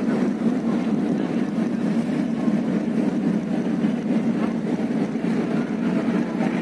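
Steady low rumble of ship engines, running evenly without change.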